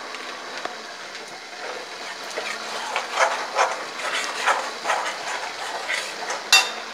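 Spiced masala paste sizzling in a metal wok. From about two seconds in, a perforated metal spoon stirs and scrapes across the wok at about two to three strokes a second, with one sharper clack near the end.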